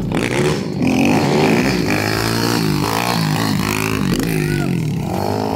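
190cc single-cylinder pit bike engines riding on pavement, the throttle opened and eased repeatedly so the engine pitch rises and falls over and over.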